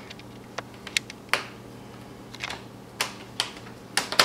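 Plastic snap clips of an HP Envy dv6 laptop's screen bezel clicking into place as the bezel is pressed onto the lid: a string of sharp, irregular clicks, two of them close together near the end.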